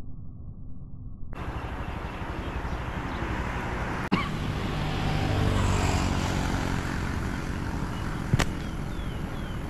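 A motor vehicle's engine passes by, swelling to a peak midway and then fading. Two sharp clicks come through, one before the peak and one near the end.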